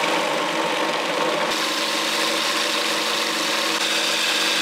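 Food processor motor running steadily at full speed, its blade chopping walnuts, mushrooms and garlic into a coarse mix.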